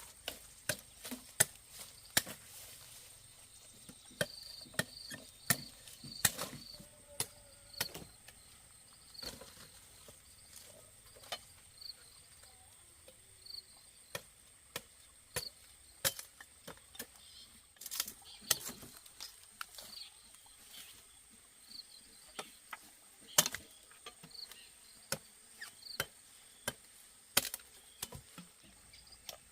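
Sugarcane stalks being chopped with a knife: sharp, irregular cracks, a few of them loud, over a steady high insect buzz and a faint chirp repeated a couple of times a second for the first half.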